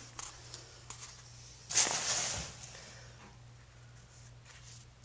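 Handling noise: a few light clicks, then a brief scraping rustle about two seconds in, over a steady low hum.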